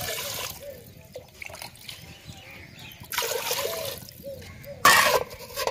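Water poured in a stream into an earthenware cooking pot, splashing in the pot until the pour ends about half a second in. A second spell of splashing comes about three seconds in, and a short, loud knock or clatter comes near the end.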